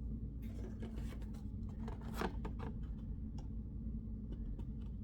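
Glossy trading cards being handled and flipped through by hand: a run of short rustles and flicks of card against card, over a steady low hum.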